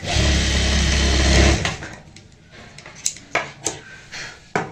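Juki industrial sewing machine stitching fabric in one steady run of about a second and a half, then stopping. A few sharp clicks follow near the end as scissors snip the thread.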